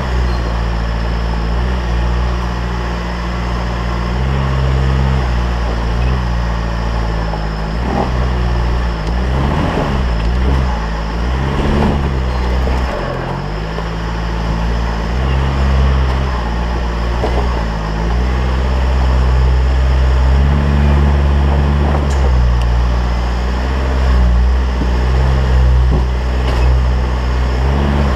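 Nissan Patrol's ZD30 four-cylinder turbo-diesel engine running steadily at low revs as the four-wheel drive drives over a muddy, rutted track, its pitch stepping up and down with the throttle. A few short knocks come about eight to twelve seconds in.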